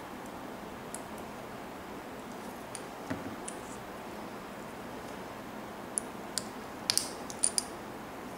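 Small hard plastic model-kit parts clicking and tapping as they are handled and pushed together on a cutting mat: a few light ticks, then a quick run of sharper clicks near the end, over a steady hiss.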